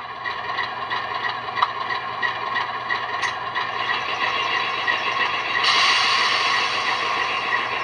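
QSI Titan-A sound decoder playing an ALCO 244 diesel prime mover idling through the model's small speakers, a steady beat of about three pulses a second. About six seconds in a loud hiss of air sets in over the engine sound.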